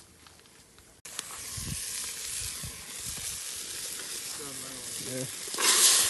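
Food sizzling in a cooking pot over a wood fire: a steady frying hiss that starts suddenly about a second in and flares louder near the end. A few low thumps sound under it early on.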